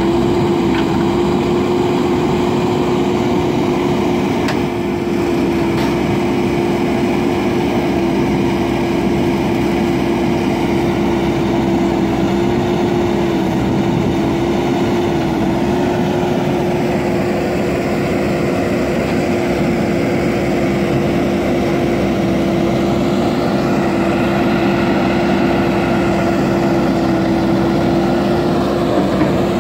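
JCB backhoe loader's diesel engine running steadily at working revs, its pitch dipping slightly a couple of times around the middle.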